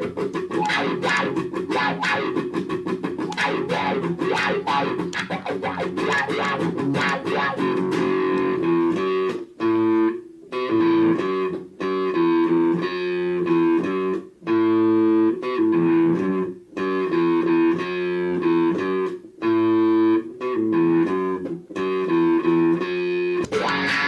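Electric guitar played through a Donner Viper Mini wah pedal: fast, choppy muted picking for the first third, then a riff of held chords that stops and starts every couple of seconds.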